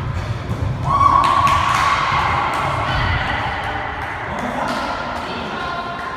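Volleyball thuds, the ball being hit and bouncing on the floor of an echoing gym, with players' voices and a long held call starting about a second in.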